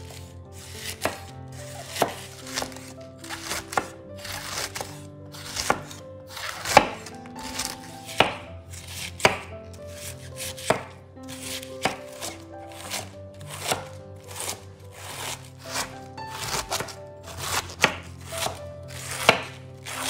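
Knife chopping food on a cutting board in irregular strikes, roughly one or two a second, over soft background music.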